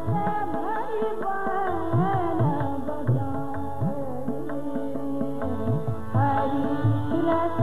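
A woman singing a Hindustani devotional bhajan in long, ornamented phrases, over a steady tanpura drone. Tabla accompanies her, its bass drum strokes sliding in pitch.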